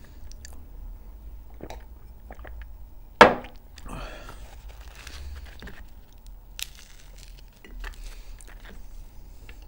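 Close-miked eating sounds: a crusty bread roll being torn and picked apart by hand, with crackling crust and chewing. A single loud, sharp crack about three seconds in.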